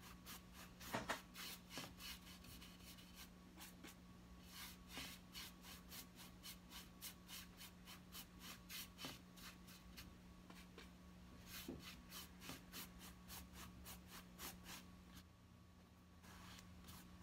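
Paintbrush stroking acrylic paint onto the painting in quick, faint, scratchy strokes, about three a second, which stop about fifteen seconds in.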